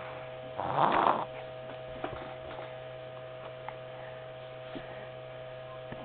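Steady electrical hum, with one loud breathy exhale about a second in and a few faint clicks.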